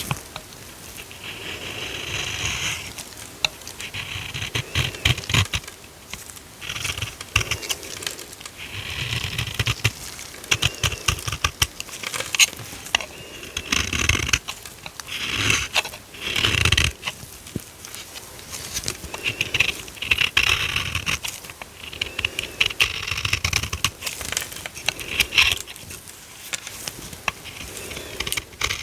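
Dry soap crackling and crumbling as it is cut and scraped, in short crisp runs every few seconds. A man snores in the background, a low rumble every few seconds.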